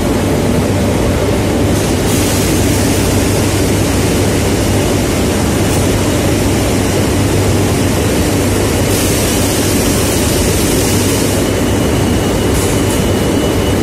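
Steady, loud industrial din of sugar-mill machinery running: conveyors, screens, motors and cyclone fans merge into a continuous rumble and hiss over a constant low hum, with a faint high whine joining in the second half.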